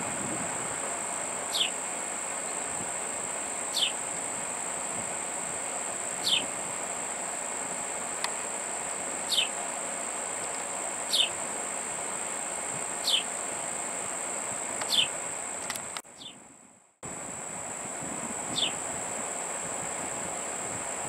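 Insects trilling steadily on one high note, with a short falling chirp repeating about every two seconds. The sound cuts out for about a second about three quarters of the way through.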